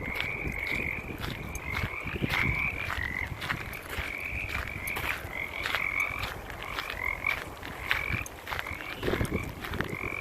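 A chorus of frogs croaking: short calls repeating about twice a second and overlapping one another, with a low rumble underneath.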